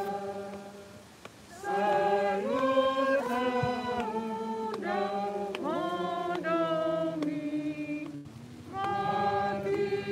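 A small group of people singing a hymn unaccompanied, in slow phrases of long held notes. The singing pauses briefly about a second in and again around eight seconds in.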